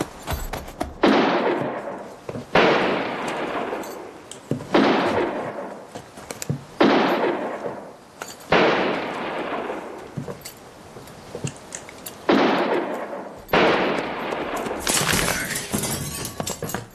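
A handgun gunfight: about seven single shots, each starting sharply and dying away over a second or more, spaced roughly two seconds apart with a longer pause near the middle.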